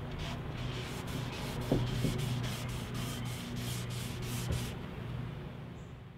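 Cloth rubbing over the surface of a wooden shelf in quick back-and-forth strokes, several a second, stopping about three-quarters of the way through, with a couple of light knocks about two seconds in. A low steady hum runs underneath.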